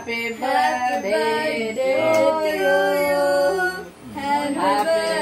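Several voices, women's among them, singing together in sustained phrases, with a short break about four seconds in.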